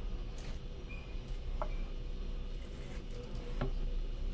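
Kitchen knife cutting a peeled chayote on a plastic cutting board: a few soft, separate knocks of the blade, over a low steady hum.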